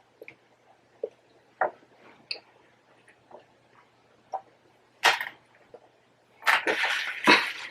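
Close-up eating sounds: scattered soft mouth clicks and smacks of chewing, then a sharper burst about five seconds in and a louder, crackly noisy stretch near the end.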